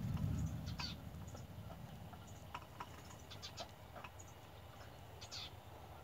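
Nestling bird begging from its nest: short, scattered chirps and clicks, some in quick runs of three or four. A low rumble fades out in the first second.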